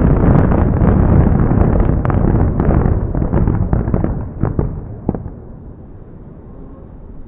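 Aerial fireworks bursting in a dense barrage: many overlapping bangs and crackles over a continuous rumble. The barrage thins out about four seconds in, with a couple of last separate bangs around five seconds, then it drops to a low fading rumble.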